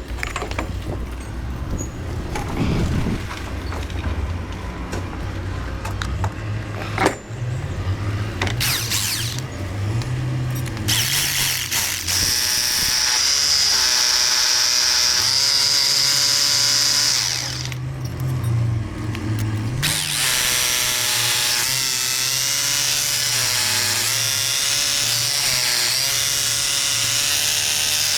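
Power tools running on a construction site, a motor's pitch rising and falling over a low machinery hum, with a loud high hiss for several seconds midway.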